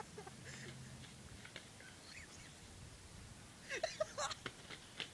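A goose and a dog scuffling: faint scattered rustles and short calls, then a louder burst of sharp wing-flapping and brief calls near the end.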